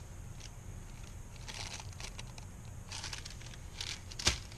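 Soft crinkling and rustling of tissue paper being handled, then one sharp click near the end from the spark wheel of a carabiner fire starter being struck.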